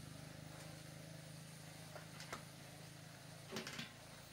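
Steady low hum with a few light knocks, the loudest a short clatter of knocks about three and a half seconds in.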